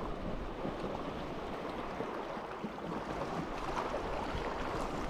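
Steady wind noise on the microphone: an even hiss over a low rumble, with no clear events.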